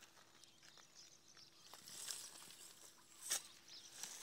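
Quiet background with faint rustling and scraping, and one short sharp click or knock about three seconds in.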